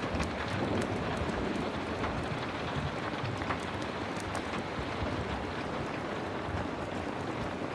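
Heavy rain falling steadily, a dense even hiss, with scattered sharp ticks of drops throughout.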